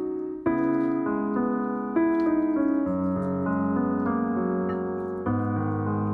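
Background piano music: sustained chords that change every second or so.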